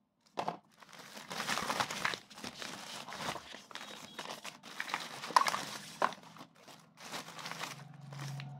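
Packaging being handled and crinkled in irregular bursts, with a couple of sharp clicks about five and six seconds in.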